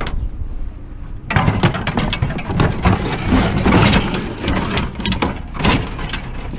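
Metal scrap clanking and rattling, starting about a second in, over a low engine hum.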